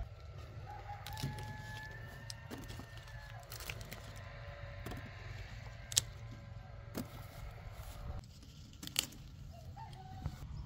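Rooster crowing in long drawn-out calls, over a low rumble. A few sharp snaps stand out, the loudest about six and nine seconds in, as apples are picked off the branches.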